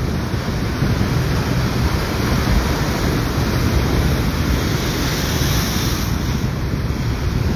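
Ocean waves breaking and washing over coastal rocks, with wind buffeting the microphone as a steady low rumble. The hiss of the surf swells about five seconds in.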